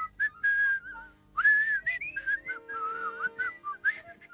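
A cartoon character whistling a tune as he walks: a wavering melody with sliding notes, breathy hiss and short pauses.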